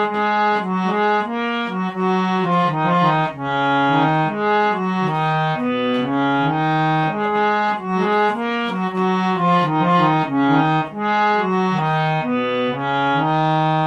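Harmonium playing an instrumental interlude in a devotional bhajan: a melody moving note by note over steady held lower notes, with no singing.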